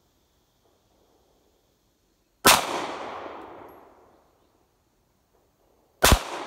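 Two gunshots about three and a half seconds apart, the second near the end. Each one rings out with a long echo that fades over about a second and a half.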